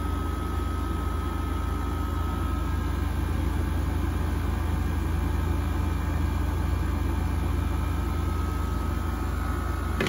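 Frigidaire 5000 BTU window air conditioner running in cool mode, its compressor and fan working and blowing cold air. It gives a steady low hum under an even rush of air, with a faint high whine held throughout.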